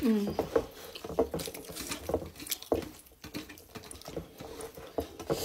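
Close, wet chewing and lip-smacking of people eating millet-flour dhido and greens with their hands, with irregular small clicks and squelches of fingers working the soft food on metal plates.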